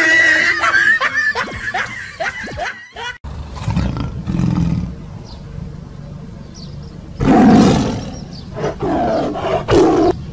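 Recorded tiger growls and roars: a low growl about four seconds in, a loud roar at about seven seconds, then more growling near the end.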